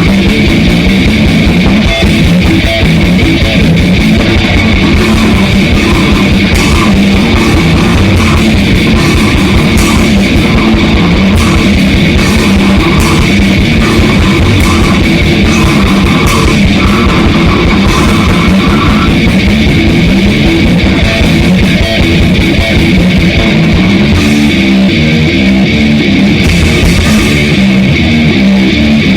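A death metal and grindcore band playing in rehearsal: distorted electric guitar and drum kit, loud and dense, with rapid drum hits.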